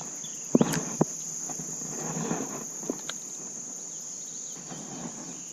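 Steady high-pitched chorus of crickets, with two sharp clicks about half a second and a second in.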